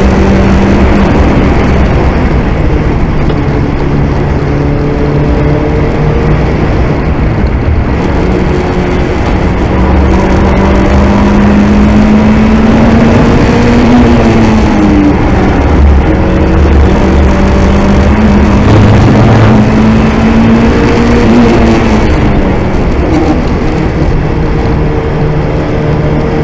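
Turbocharged 2.0 16-valve four-cylinder engine of a VW Golf Mk2 running hard under load. The revs climb slowly for several seconds and then drop sharply, twice, about halfway through and again near the end, over steady road and wind noise.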